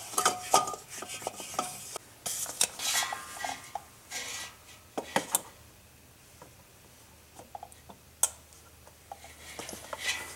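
Light metallic clinks, taps and scrapes of small brake parts and tools being handled, with a few sharp clicks in the second half.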